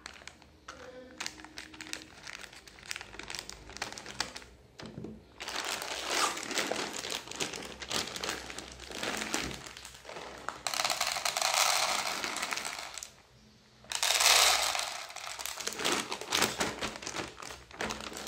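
Plastic bag of dry cat food being snipped open with scissors and handled, crinkling and crackling. Dry kibble is then poured into a plastic two-compartment bowl in two pours of about two seconds each, with a short pause between them, the pellets rattling steadily.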